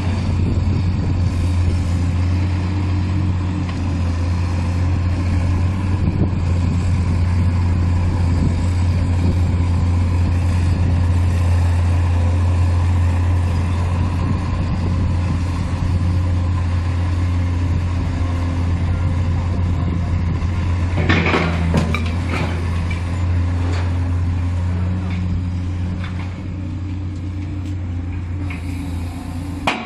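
Excavator diesel engine running steadily with a deep hum, with a brief cluster of metal clanks about two-thirds of the way through as the steel grapple handles scrap.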